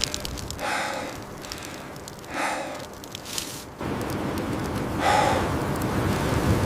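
Heavy breathing, one breath roughly every two seconds, with a low rumble of wind on the microphone starting a little over halfway through.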